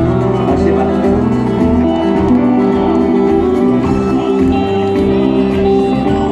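Instrumental passage of a rock song with guitar: steady held notes over a bass line, and no singing.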